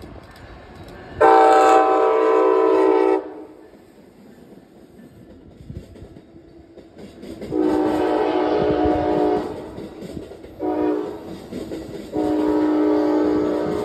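Train air horn sounding a multi-note chord in four blasts: one long blast, then after a pause of about four seconds a long, a short and a long.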